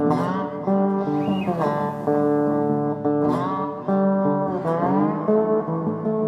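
Guitar music: sustained chords with notes sliding in pitch about every second and a half.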